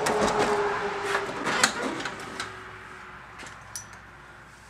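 Rustling and scuffing with a few sharp clicks and knocks as a person moves about in the truck's cab. It is loudest in the first two seconds and fades away after that.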